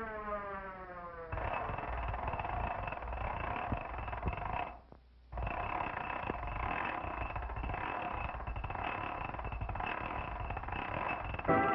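Cartoon sound effect of a ship's deck winch running: a steady mechanical rattle with a faint whine in it, which breaks off for about half a second near the middle. At the start, a falling siren-like tone fades out about a second in. The sound is thin and lacks treble, as on an early-1930s film soundtrack.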